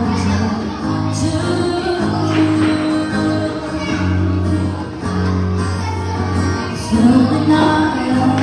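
A woman singing live into a microphone, accompanied by an acoustic guitar.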